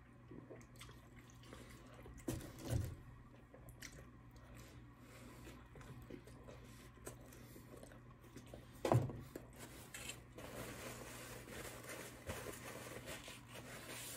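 A person chewing a bite of pepperoni pizza, with faint crunching mouth sounds and two louder thumps, one about two and a half seconds in and one near nine seconds.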